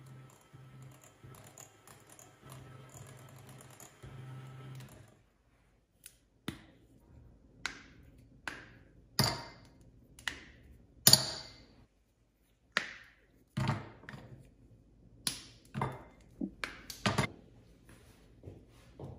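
Hard kitchen implements knocking and clinking against dishes, about fifteen sharp, briefly ringing clicks at irregular intervals, the loudest about nine and eleven seconds in. A low hum switches on and off during the first five seconds.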